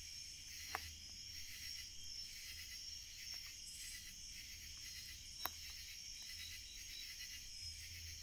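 A steady high chorus of night insects, over a wood fire crackling with a few sharp pops, the loudest about five and a half seconds in.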